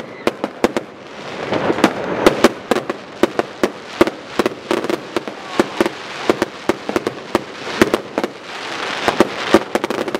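Consumer fireworks going off: a rapid, irregular run of sharp bangs and pops, with two stretches of dense crackling, one about two seconds in and another near the end.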